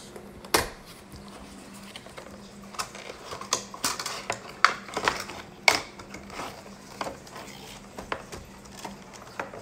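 Cardboard Funko Pop box being handled and opened: irregular clicks, taps and scrapes of cardboard, with sharp snaps about half a second, four and a half and five and a half seconds in.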